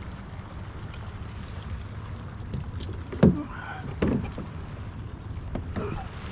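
Fishing kayak on the water with a steady low rumble, and two loud thumps about three and four seconds in, then a softer one near the end.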